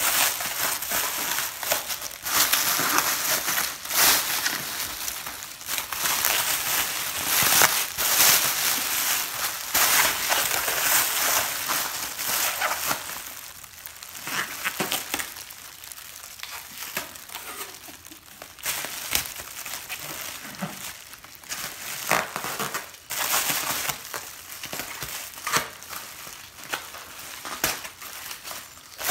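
Blizzard Blanket's reflective plastic sheeting crinkling and crackling as it is wrapped and pressed tightly around a body, louder in the first half and quieter from about halfway through.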